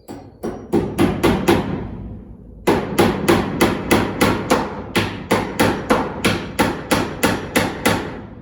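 A hammer striking repeatedly, as when driving nails on a building job. It starts with a short run of blows, pauses for about a second, then keeps up a steady run of about three blows a second.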